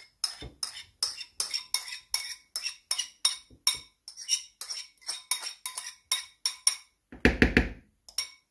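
Metal teaspoon scraping and clinking against a small ceramic bowl as sour cream is scooped out, in quick repeated strokes about three a second. There is a short, louder and deeper noise near the end.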